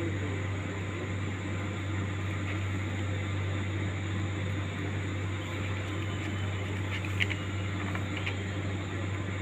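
A steady low machine hum over background hiss, with a brief high chirp about seven seconds in.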